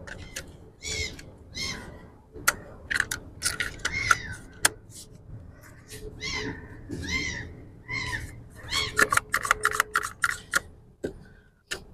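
An animal calling about six times in short arched calls, among many sharp clicks and knocks of hand work.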